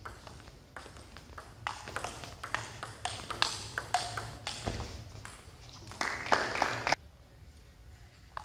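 Table tennis ball clicking back and forth off the bats and the table in a rally, the strikes coming at uneven spacing. A louder noisy stretch of about a second comes near the end, after which it goes quieter.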